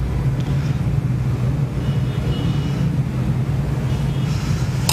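Steady low rumble and hum of a running machine, with a short click near the end.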